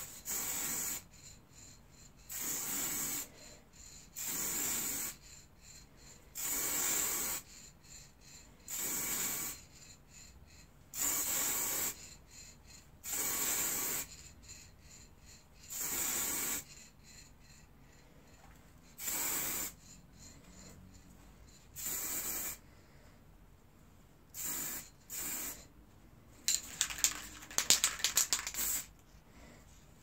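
Aerosol can of spray lacquer hissing in about a dozen short sprays, each around a second long and roughly two seconds apart. Near the end there are a few seconds of sharp rattling clicks.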